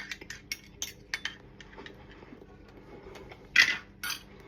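Light clicks and clinks of kitchenware being handled, then a louder short rasping sound about three and a half seconds in and a smaller one just after.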